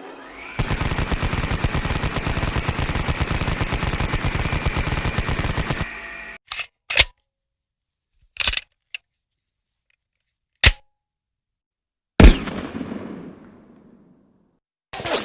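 Machine-gun fire sound effect: a sustained burst of rapid shots for about five seconds, then a handful of single gunshots spaced a second or two apart, the last one ringing out longer.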